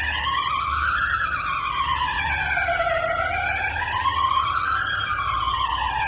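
Belgian public warning siren wailing: one steady tone sliding slowly up and down, about once every four seconds, with a low hum underneath.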